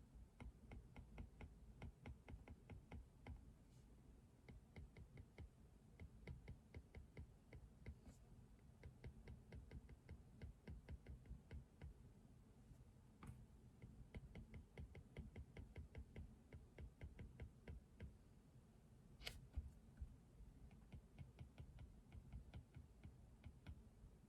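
Computer keyboard typing, heard faintly as quick runs of key clicks with short pauses between them. About two-thirds of the way through comes one sharper, louder click.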